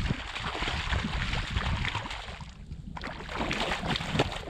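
Hooked brown trout thrashing and splashing at the surface of shallow lake water, a rapid run of splashes that lets up briefly past the middle, then starts again.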